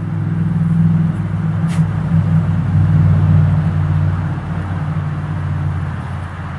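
A motor running steadily, giving a loud low hum whose pitch shifts slightly a couple of times.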